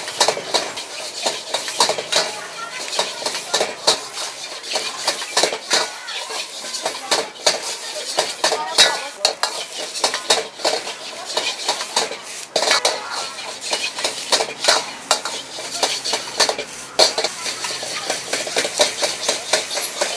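Metal ladle and spatula scraping and clanking against a wok, several quick strokes a second, as egg fried rice is stir-fried over a gas flame, with sizzling underneath.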